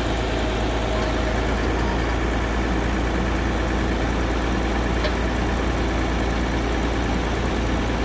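Diesel engine of heavy machinery idling steadily.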